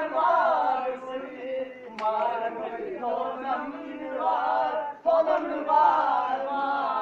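A group of young men singing together, unaccompanied, in loose unison, phrase after phrase with short breaks between.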